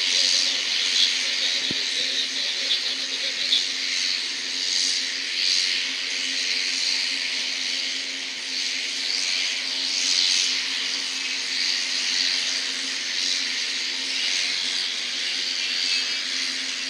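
F-35A's Pratt & Whitney F135 jet engine idling at a standstill: a steady hiss with a low, even hum underneath.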